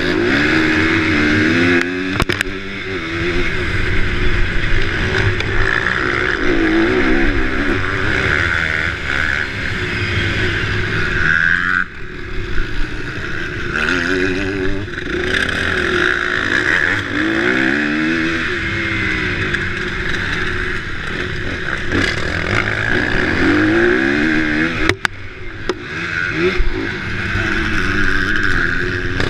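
Motocross bike engine revving up and falling back again and again as the rider accelerates and shifts around a dirt track, heard from on board the bike. The throttle drops off briefly about twelve seconds in and again near twenty-five seconds, the second with a sharp knock.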